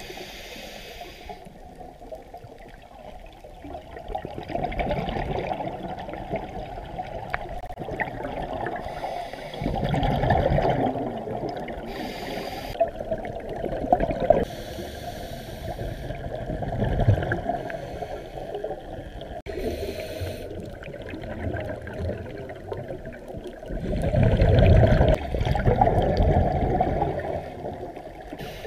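A scuba diver breathing through a regulator underwater: long gurgling rushes of exhaled bubbles every several seconds, the loudest near the end, with short hisses of inhaled air between them, all muffled.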